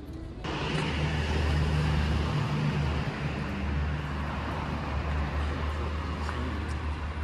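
Street traffic noise with a steady low engine hum from a motor vehicle close by, starting abruptly about half a second in.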